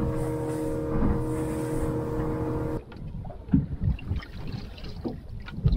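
Boat's outboard motor running steadily underway with hull and water noise, then cut off abruptly about three seconds in. After that come quieter wind and water sounds with scattered knocks on the stopped boat.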